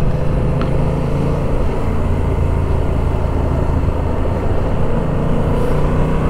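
Yamaha XSR700's parallel-twin engine running while riding at a steady pace; the engine note drops a little about a second and a half in and rises again near the end.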